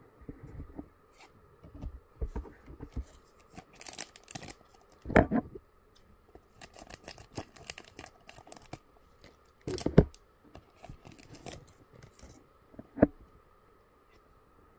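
Scissors cutting open a trading-card booster pack, with the wrapper crinkling and cards being handled and shuffled. A few sharper knocks stand out, about five, ten and thirteen seconds in.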